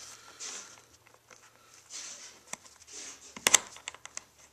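Hands brushing over racing-seat upholstery while the fingers start a bolt into the seat's threaded hole by hand, giving soft rustling and small clicks, with a sharp double click about three and a half seconds in.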